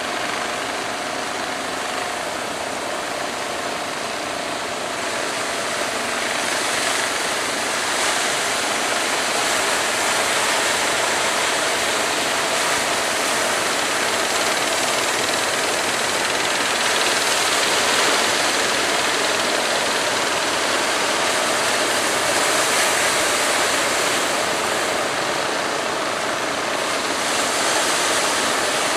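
Steady rushing noise of a rough, breaking sea and wind, with fishing-boat engines running under it. A faint steady whine fades out over the first several seconds.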